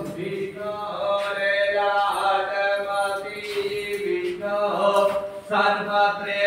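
Vedic Sanskrit mantras chanted in a slow, drawn-out melodic recitation, the voice holding long notes.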